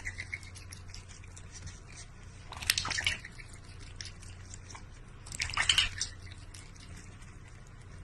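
Wet dripping sounds in two short bursts, about two and a half and five and a half seconds in, over a steady low hum.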